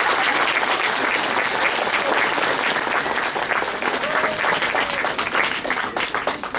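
An audience applauding, the clapping thinning into scattered separate claps near the end.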